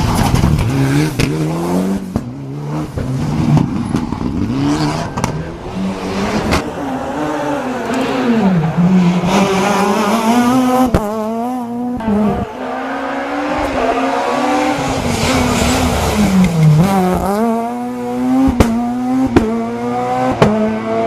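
Rally car engines revving hard. The pitch climbs through each gear and drops at the shifts and on lift-off, with a few sharp cracks among the revving.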